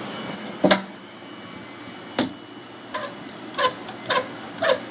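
Two sharp knocks, then from about three seconds in a hand hacksaw cutting in steady back-and-forth strokes, about two a second.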